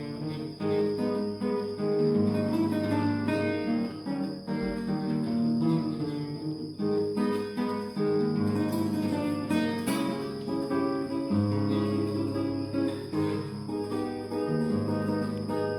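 Spanish guitar played solo, a quick run of plucked notes and chords, with crickets chirring steadily underneath.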